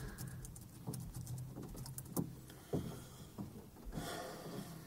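Quiet pause in a hall: a low steady hum of room tone with a few faint knocks and a brief soft rustle near the end.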